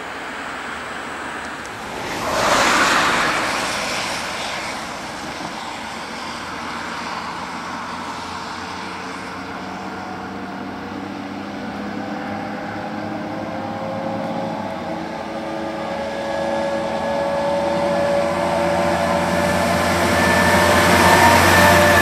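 A vehicle passes close about two seconds in. Then a fire engine's two-tone siren (Martinshorn) comes nearer and grows louder, and the truck's engine rumbles past near the end.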